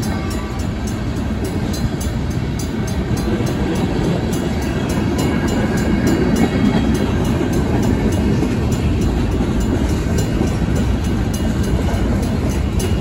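Freight cars rolling through a grade crossing: a steady rumble of steel wheels on the rails as tank cars and covered hoppers pass. Over it the crossing's Safetran mechanical bell rings at an even beat.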